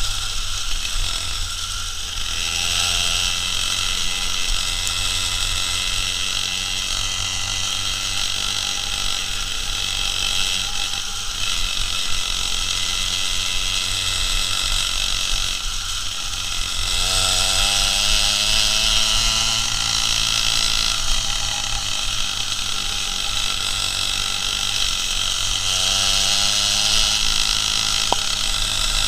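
Two-stroke chainsaw engine of a homemade moped running under way, over a steady hiss. Its pitch rises as it revs up about 17 seconds in and again near the end.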